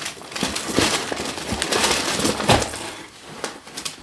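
Packaging rustling and crinkling as items are handled and lifted out of a box, with irregular light clicks and knocks.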